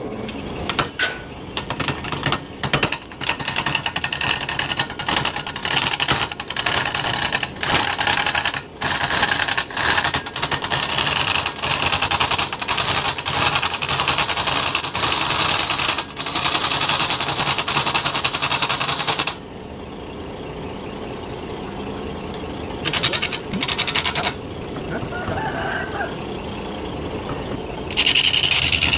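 A turning tool cuts into a large wooden log spinning on a lathe, a harsh scraping that breaks off briefly many times. About two-thirds of the way through the cutting stops and the lathe's motor hums on, with one short burst of cutting. The tool bites again near the end.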